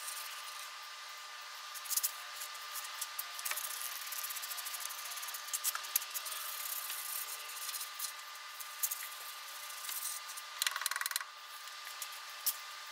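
Small hand brush scrubbing grease off a steel front crossmember: a quiet, scratchy hiss with scattered clicks, and a brief rattling burst near the end.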